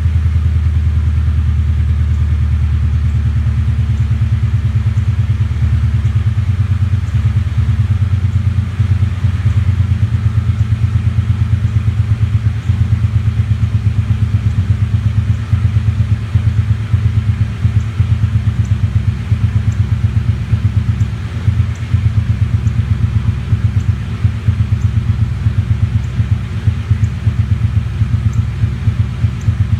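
1998 Ford Mustang GT's 4.6-litre V8 running at a steady speed with an uneven, pulsing beat, the sign of a misfire. The throb grows more marked about eight seconds in.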